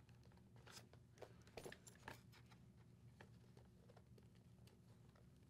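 Near silence, with a few faint clicks and rustles about one to two seconds in as hands work the motorcycle helmet's padded liner loose from its snaps.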